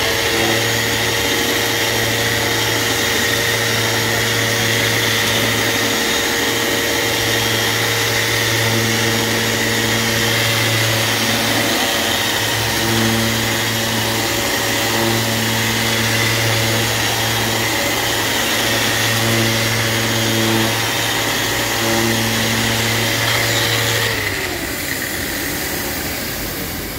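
Festool Rotex RO 150 eccentric sander running steadily, sanding a clear plastic block with fine abrasive. About 24 seconds in it is switched off and the motor winds down with a falling whine.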